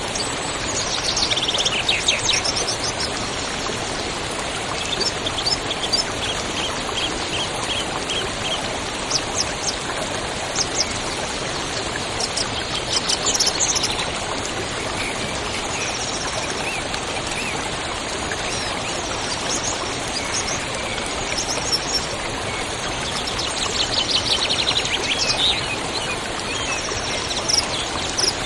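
Songbirds chirping and trilling over the steady rush of a river. Several fast trills stand out, with a run of evenly repeated notes in between.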